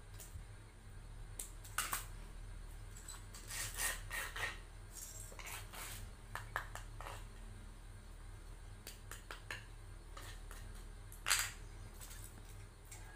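Thin embossed metallic foil being handled: snipped with scissors, then crinkled and pressed as it is folded around a small box. Scattered rustles, scrapes and light clicks of tools on the board, the sharpest click about eleven seconds in, over a low steady hum.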